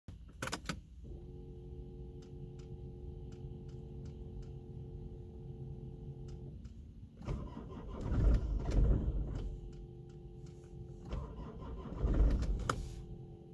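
Car engine cranked by the starter twice, each try lasting about two seconds, without catching: a no-start. A steady electrical hum runs between the tries and drops out while the starter turns.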